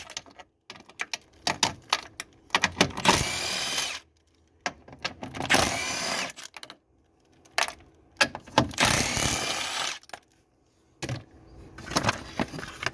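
A cordless power tool with a socket runs three times, each for about a second and a half, spinning out bolts in a car's engine bay. Its pitch shifts as the bolt loosens. Between the runs come sharp clicks and knocks from handling the tool and parts.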